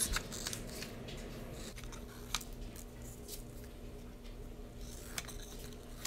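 Scissors cutting construction paper: a few faint, scattered snips.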